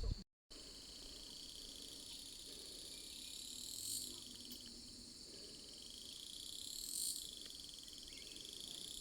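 Chorus of calling insects: a steady high trilling, with a louder call that swells up and breaks off about 4 and 7 seconds in and starts to swell again near the end.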